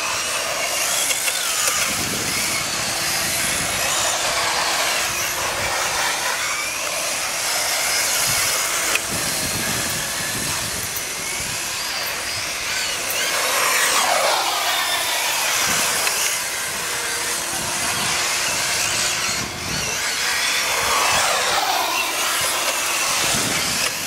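Radio-controlled cars racing on asphalt, their small motors whining and sweeping up and down in pitch as they speed past, over a steady hiss of tyre and drivetrain noise.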